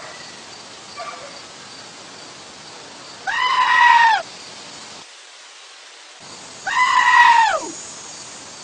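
Goat screaming: two loud, drawn-out yells of about a second each, the pitch dropping at the end of each, after a faint short call about a second in.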